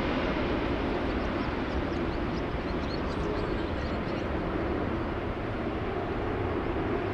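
Four Rolls-Royce Trent 970 turbofans of an Airbus A380-800 climbing out after takeoff, heard from behind the aircraft: a steady, deep jet rumble that eases slowly as the plane draws away.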